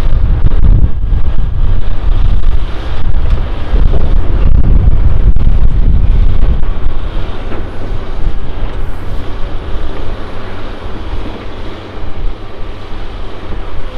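CAT 329D excavator's diesel engine and hydraulics working as it swings its grapple over the dump truck, with the truck's diesel running alongside: a heavy, deep rumble that eases about halfway through.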